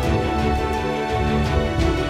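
Instrumental background music with held chords and light percussion hits.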